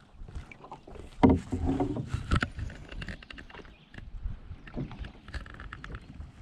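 Canoe being paddled across calm water: irregular paddle strokes splashing and dripping, with a couple of louder splashes or knocks about a second and two and a half seconds in.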